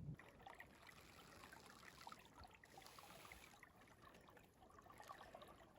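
Near silence: faint outdoor ambience with a light hiss and scattered tiny ticks.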